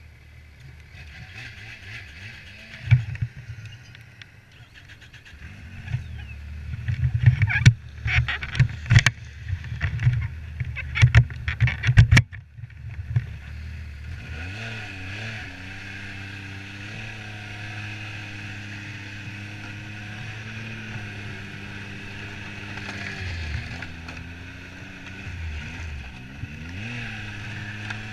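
Yamaha Viper XTX snowmobile engine, a new motor being broken in. It idles low under a string of loud knocks and thumps over the first half. From about halfway it runs at low speed, its pitch rising and falling as the sled rides off.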